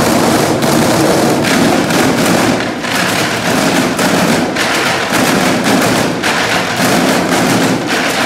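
Many sticks drumming fast on white plastic chairs: a loud, dense clatter of sharp strikes with no let-up.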